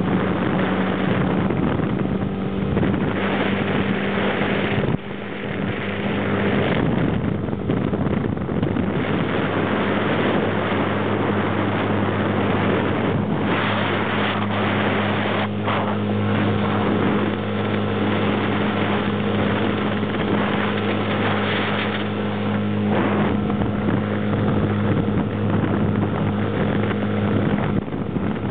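Small rental motorboat's engine running steadily under way, a constant hum over the rush of wind and water, with wind buffeting the microphone. The sound dips briefly about five seconds in.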